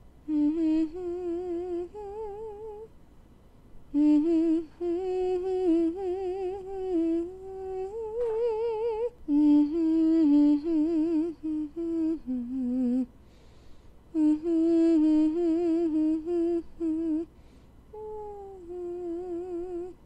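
A single voice humming a slow melody with a strong vibrato, phrase by phrase with short pauses between.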